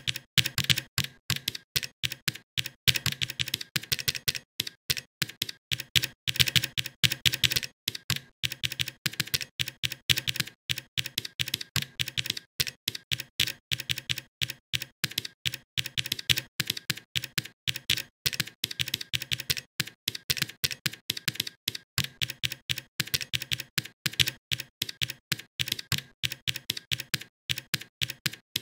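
Typing on a computer keyboard: a steady run of sharp key clicks, several a second, with a few short pauses between bursts of typing.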